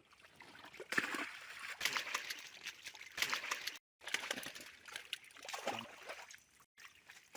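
Water sloshing and splashing in irregular spells, broken twice by sudden cuts.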